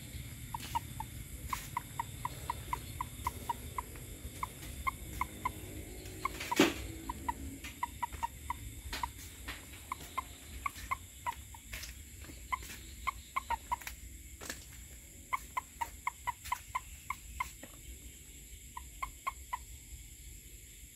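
Frogs calling at night: quick runs of short calls, several a second, repeating and overlapping throughout. There is a single loud knock about six and a half seconds in.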